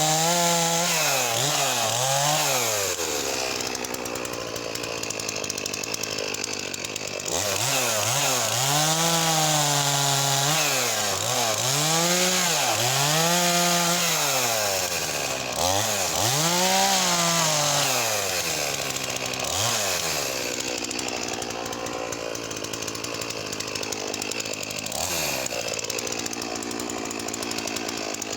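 Makita DCS4610 45cc two-stroke chainsaw cutting wood. Its engine pitch sags again and again as the chain bites and recovers between cuts, with stretches of steady high revs.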